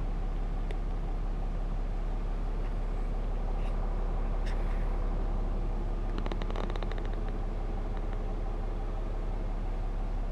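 6.7-liter Cummins turbo-diesel inline-six idling steadily, heard from inside the truck's cab, with a short patter of small clicks about six seconds in.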